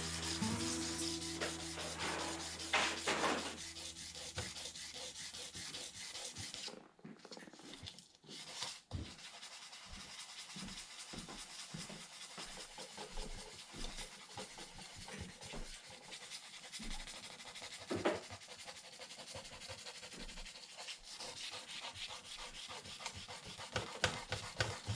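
Sandpaper rubbed by hand over a painted RC truck body in quick back-and-forth strokes, wearing through the paint to give a faded patina. There is a short pause about seven and eight seconds in.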